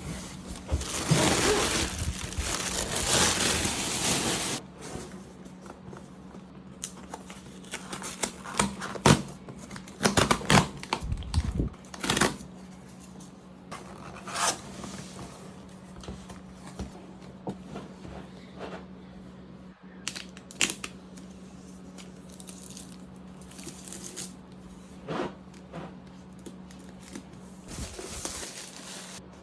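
MacBook Air M2 box packaging being torn open, with a loud tearing rip lasting about four seconds at the start. Scattered clicks, scrapes and crinkles follow as the cardboard and wrapping are handled.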